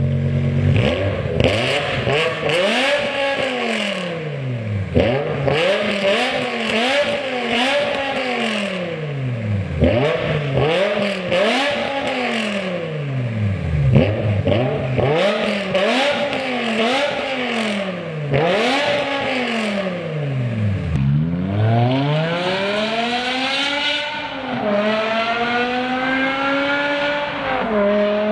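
BMW E60 M5's V10 through a catless, valved aftermarket exhaust, revved in quick repeated blips, about one every second and a half, with sharp crackles between them. Near the end comes one longer, slower rev, then a steadier, slowly climbing note.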